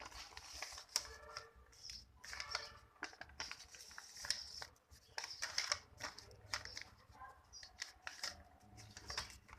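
A sheet of paper being handled, folded and creased by hand: repeated rustles and sharp crackles of the paper, with short pauses between folds.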